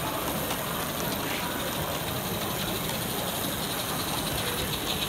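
A live-steam model saddle-tank locomotive running under steam, with a quick, even chuff over a steady steam hiss and its wheels rolling on the track. The beat grows clearer about halfway through.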